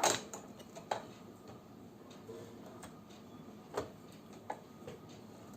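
A handful of light, sharp clicks and taps at uneven intervals, the loudest right at the start, from plastic pendant lamp holders, bulbs and wires being handled while a single bulb is connected.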